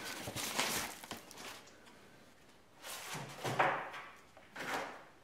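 Loose papers rustling as they are gathered up, then a ring binder being handled, with a couple of soft knocks about three and four and a half seconds in.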